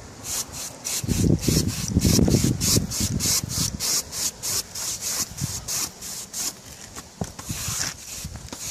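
A stiff bristle brush scrubbing hard across the bricks and mortar joints of a brick chimney in quick back-and-forth strokes, about three a second. A low rumble runs between about one and three seconds in.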